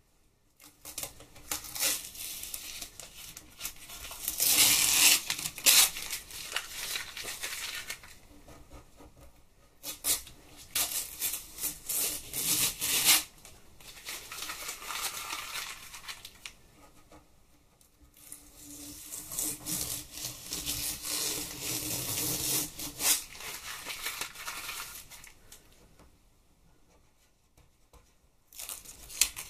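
Masking tape being peeled off card: three long stretches of ripping, each a few seconds, with quiet pauses between, and another peel starting at the end.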